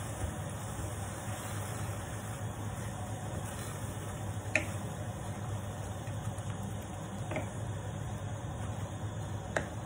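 Wooden spatula stirring sweet potato leaves in a stainless steel pan, clicking against the pan three times, about halfway in and near the end, over a steady low hum and hiss.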